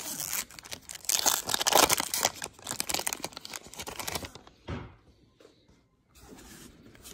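Foil wrapper of a trading card pack crinkling and tearing as it is ripped open, loudest a second or two in and stopping after about four seconds, followed by a single soft thump and faint handling of the cards.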